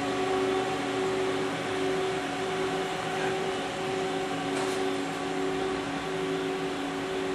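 Mori Seiki ZL-15 CNC lathe running under power: a steady machine hum with a few held tones that swell and fade in level, and a brief hiss about halfway through.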